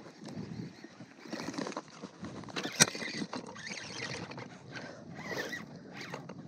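Short, irregular zipper-like rasps from hands working fishing line at a baitcasting reel, with one sharp click a little under three seconds in.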